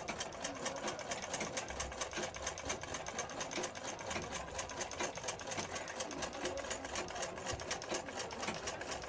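Domestic sewing machine running steadily, its needle mechanism clattering in a rapid, even rhythm as it stitches a folded fabric hem.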